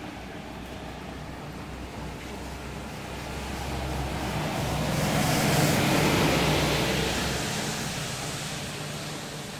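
A vehicle passing by: engine and road noise rise to a peak about six seconds in and then fade, over a steady low hum.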